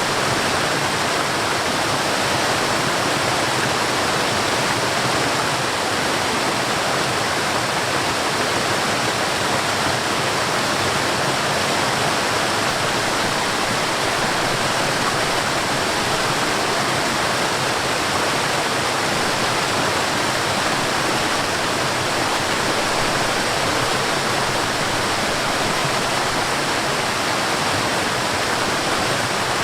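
Rushing water of a mountain stream and waterfall, a steady, even roar with no pauses or changes.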